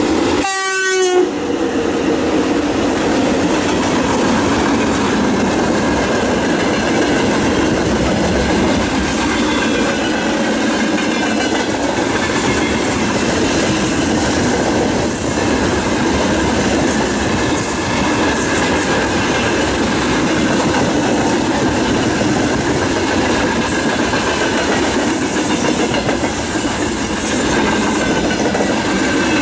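A long freight train of loaded wagons rolls past at speed behind a VL11 electric locomotive. The wheels rumble on the rail steadily, with a rhythmic clickety-clack over the rail joints and faint wavering wheel squeal.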